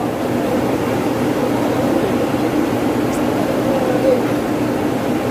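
Steady mechanical drone of running plant machinery, with muffled voices faintly under it.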